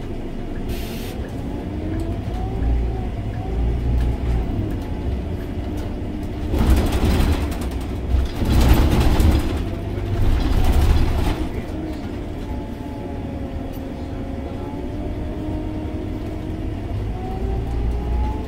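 Interior sound of a Scania OmniLink three-axle city bus running on its biodiesel engine: a steady deep rumble with a whine that rises and falls in pitch as the bus slows for a roundabout and pulls away again. Through the middle there are several seconds of louder rushing noise.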